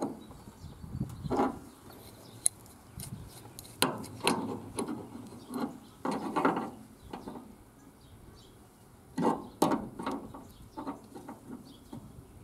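Irregular handling noise: a series of short rubs, scrapes and knocks at uneven intervals, with quieter gaps between them.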